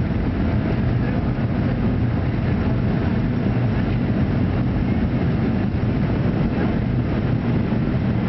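Cabin noise inside a Boeing 737-300 taxiing, heard from a seat over the wing: its CFM56-3 jet engines running steadily at low power, a continuous hum and rush with no spool-up.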